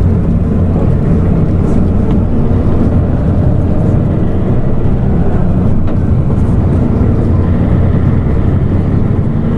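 Hino Blue Ribbon City Hybrid bus (LNG-HU8JMGP) under way, its diesel engine running steadily with a deep, even drone and road noise.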